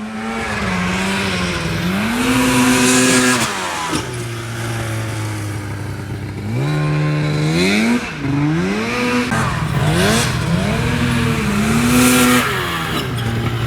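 Polaris RMK 800 snowmobile two-stroke engine in a Honda Odyssey buggy, being driven hard: its revs climb and drop again and again as the throttle is worked, several rising pulls in a row.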